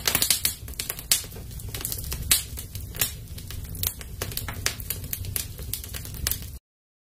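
Crackling-fire sound effect: irregular sharp crackles and pops over a low rumble. It cuts off abruptly near the end.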